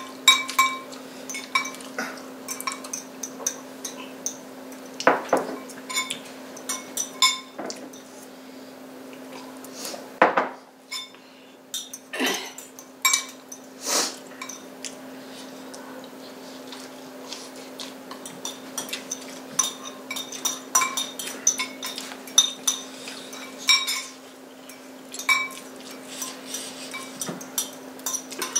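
Metal forks and spoons clinking and scraping against ceramic plates and bowls as people eat, in irregular clinks through the whole stretch, over a steady low hum.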